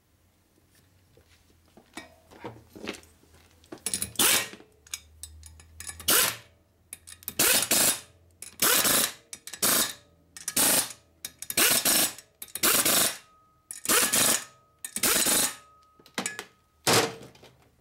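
Pneumatic air ratchet (zip gun) running nuts down onto studs in about a dozen short bursts of air-driven whirring and hissing, with small clicks and rattles of nuts and washers before the first burst.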